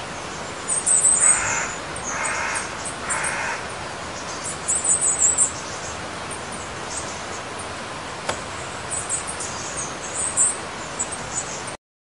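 Small birds twittering in high, thin bursts, with three harsh calls from a larger bird about a second apart, starting a little over a second in.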